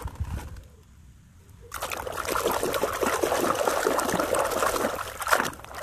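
Water splashing and swishing as a hand scrubs a plastic toy in a basin of muddy water. It starts suddenly about a second and a half in, after a quiet stretch, and eases off just before the end.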